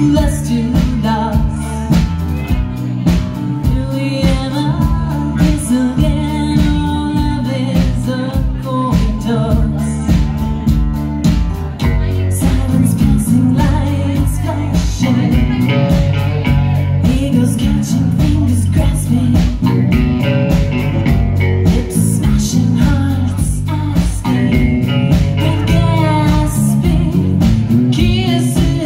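Live rock band playing: a woman singing over electric guitars, bass guitar and a drum kit keeping a steady beat. The band gets a little louder and fuller about twelve seconds in.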